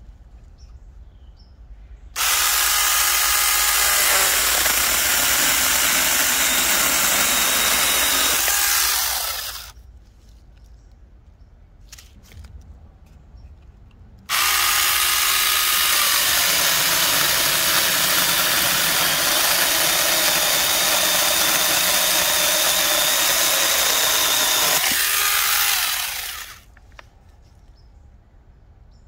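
Small cordless electric mini chainsaw cutting through logs in two long runs: each starts suddenly at full speed and runs steadily, the first for about seven seconds and the second for about twelve, then winds down.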